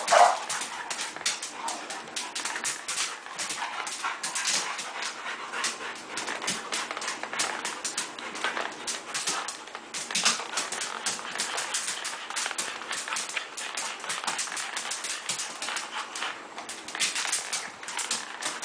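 Dog's claws clicking and scrabbling rapidly and unevenly on a tile floor as it spins and lunges after a spot of light. There is one short whine right at the start, the loudest moment.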